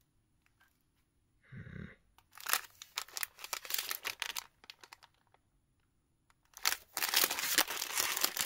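Plastic chocolate-bar multipack wrapper crinkling and rustling as it is handled and turned over, in two bouts with a quiet gap between; the second bout, near the end, is denser and louder.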